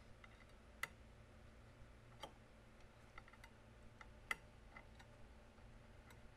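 Light metal-on-metal clicks and ticks, scattered and uneven, as a small steel hand tool is worked against the end of a threaded steel chamber sleeve; two sharper clicks stand out, one about a second in and one past the middle.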